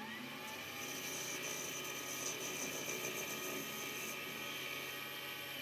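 Metal lathe running with its tool taking a light cleanup cut along the outside of a spinning brass bar. A higher steady note joins the machine sound from about half a second in until about four seconds in, while the cut is under way.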